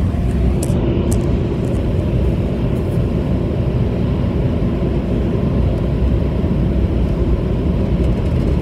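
Air dryer blowers of a Ryko automatic car wash running, heard from inside the car: a loud, steady noise with most of its weight low.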